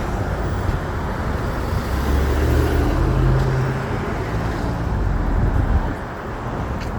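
Road traffic noise with a motor vehicle's engine passing close, strongest about two to three seconds in, easing off after about six seconds.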